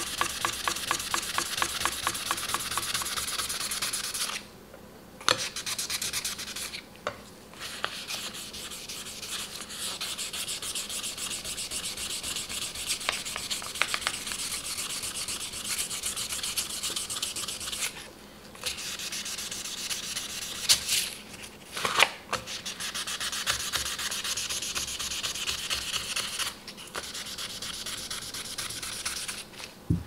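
Sandpaper rubbed in quick back-and-forth strokes over the face of a steel Victorinox chef's knife blade, polishing out scratches left by the whetstone. The strokes stop for brief pauses several times, with a few light knocks.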